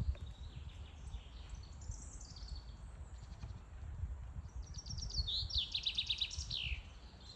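Songbirds singing, with scattered chirps and then a loud, rapid trill of repeated notes about five seconds in that ends in a falling flourish, over a low rumble.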